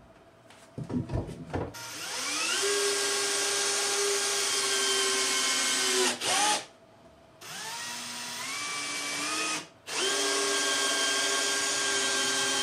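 Cordless drill-driver driving screws into a wooden two-by-four. A few knocks come first. Then the motor runs steadily for about four seconds, slows and stops, runs again for about two seconds with its pitch stepping up, and starts once more near the end.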